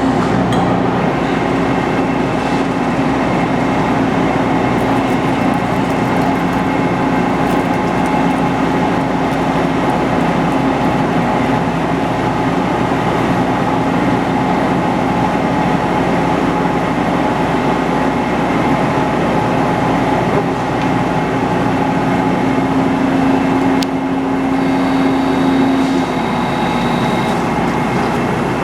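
Metal lathe running steadily while machining a sawmill mandrel collar, a constant mechanical whir with a steady hum that drops out near the end.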